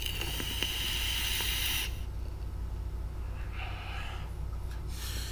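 A person taking a long drag on a smoke: a hissing inhale lasting about two seconds, then a shorter, softer breath out a couple of seconds later.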